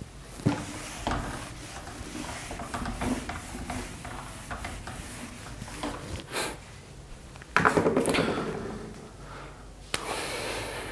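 A duster wiping a whiteboard in short rubbing strokes, with handling noises. A louder scuffing passage comes about eight seconds in.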